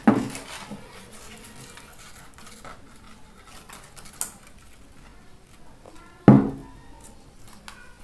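Metal scissors being handled on a work table: a ringing metallic clank at the start and a louder one about six seconds in, with a sharp click around four seconds and light ticks between.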